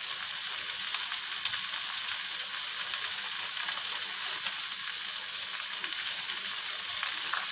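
Hot oil sizzling steadily in a nonstick wok, frying a whole fish alongside sliced red bell pepper, shallots, garlic and chili.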